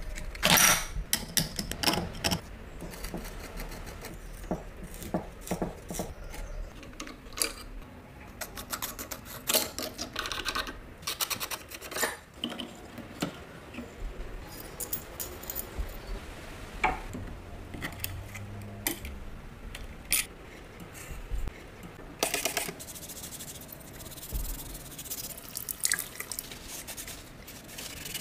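A string of sharp clicks, taps and small metal knocks as metal parts and tools are handled on a workbench. About two-thirds of the way through, a steady hiss of running water begins as a bristle brush scrubs the box in a sink.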